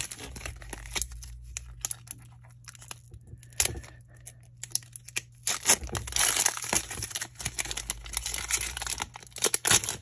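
A foil Pokémon booster pack wrapper crinkling and being torn open by hand, in irregular crackles with a denser stretch of tearing about six seconds in. A faint steady low hum runs underneath.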